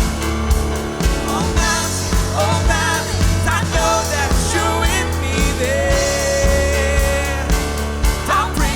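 Live worship band playing: drums, bass guitar and piano, with a singer's voice carrying wavering, held notes over the beat.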